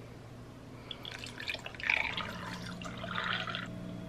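Coffee and then creamer poured from bottles into a glass of ice, in two short pours with a light splash and trickle.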